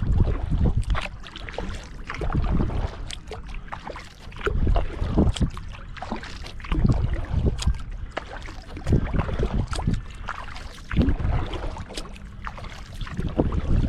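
Kayak paddle strokes: the blades dip and pull through the water with a splashing surge about every two seconds, with drips and small splashes in between.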